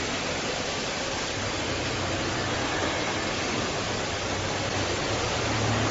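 Multi rip saw running under power with a steady whooshing noise over a low hum.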